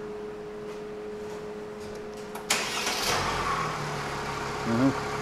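Mercedes-Benz GLE 350's engine being started about halfway through: it catches with a sudden louder burst and settles into a steady idle, over a steady hum.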